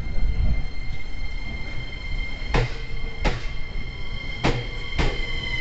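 E231-series electric train rolling slowly, with a steady high whine over a low rumble. Four sharp clicks, in two pairs about a second apart, come in the second half as wheels pass over rail joints.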